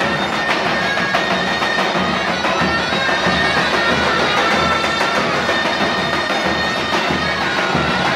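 Davul and zurna band playing: two zurnas carry a reedy melody with long held notes over the beat of large double-headed davul drums.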